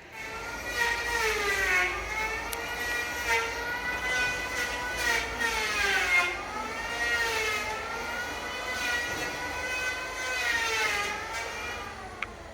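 A motor's steady high whine whose pitch sags and climbs back slowly several times, like a machine changing speed.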